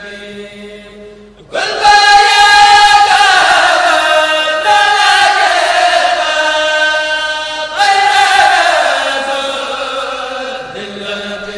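A khassida, an Arabic devotional poem, chanted in long held, wavering notes. A louder phrase comes in about a second and a half in, with a short break near eight seconds before the next phrase, which slowly grows softer.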